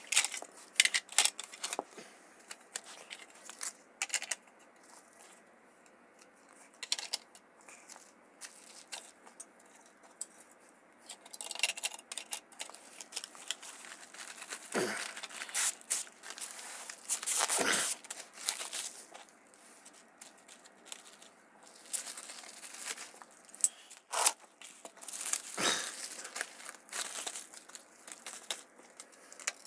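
Plastic wrap being pulled, torn and crinkled in irregular bursts, with scattered clicks and knocks of handling.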